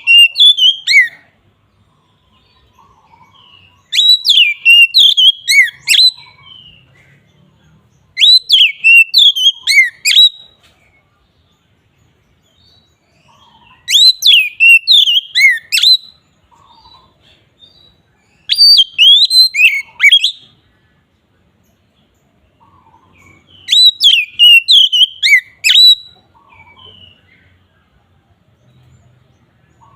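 Oriental magpie-robin (kacer) in full 'ngeplong' song: loud, whistled phrases of about two seconds each, repeated every four to six seconds with short pauses between them.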